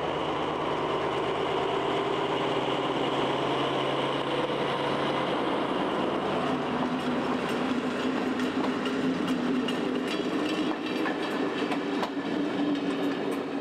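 Diesel-hauled passenger train rolling past: the locomotive's engine runs steadily and the coaches' wheels click over the rail joints, the clicking plainer in the second half.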